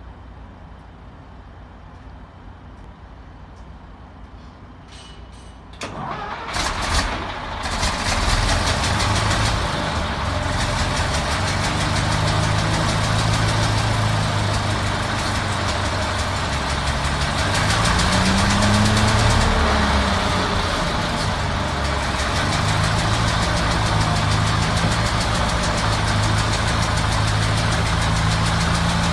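Thornycroft Antar tank transporter's Rover Meteorite V8 petrol engine: after a few clicks it is started about six seconds in, catches roughly, then settles into a steady idle. About two-thirds of the way through the revs rise briefly and drop back to idle.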